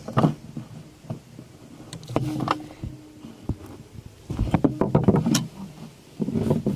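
Handling noise from a Simplex chevron fire alarm pull station: a series of clicks and knocks, the sharpest near the start and about five seconds in.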